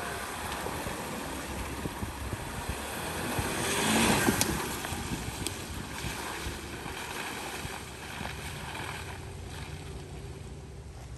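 Land Rover Discovery 4 driving through a muddy puddle: engine running and tyres splashing through water, loudest about four seconds in, then fading as it drives away.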